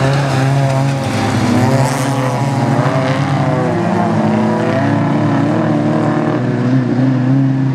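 Several bilcross (folkrace) cars racing on a gravel track, their engines revving together, rising and falling in pitch through the bends.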